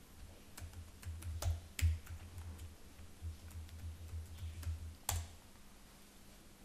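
Typing on a computer keyboard: a run of keystrokes over about four and a half seconds, ending with one louder click a little after five seconds in as the login is submitted.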